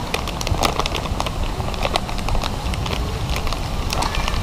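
Irregular clicks and taps, a few to several a second, over a steady low rumble.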